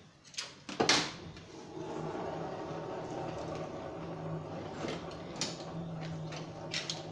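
A sharp metal clank about a second in, then a steady hum and rush of a blacksmith's forge running, with a few light metal clinks, as the steel rod is reheated.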